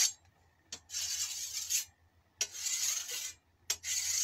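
Amtech E2556 diamond sharpening file, curved side, stroked by hand along a sickle's steel blade to sharpen the edge. Three strokes come about a second and a half apart, each just under a second long, with a short click before two of them.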